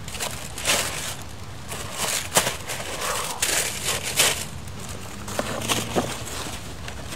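Brown packing paper rustling as it is folded around a shoe in a cardboard shoe box, with a few sharp handling clicks. The cardboard lid goes on near the end.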